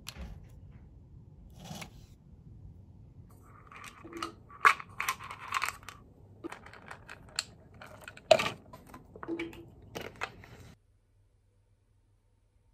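Plastic supplement bottles handled close to the microphone: screw caps twisted and snapped, with clicks, scrapes and the rattle of large tablets inside.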